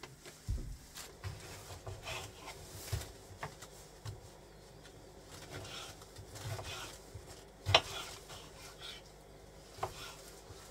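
Kitchen knife cutting a tomato on a wooden cutting board: scattered scraping and short knocks of the blade against the board, the loudest about three-quarters of the way through.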